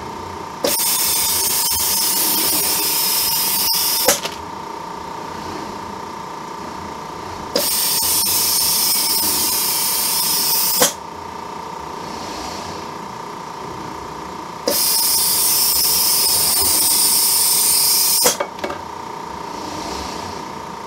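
Pneumatic vacuum suction gripper on a robot arm: compressed air hisses loudly through the vacuum generator for about three and a half seconds at a time, three times, each time switched on and off with a sharp valve click. The hiss runs while the suction cup holds an item being carried to the plate. A steady high hum runs underneath throughout.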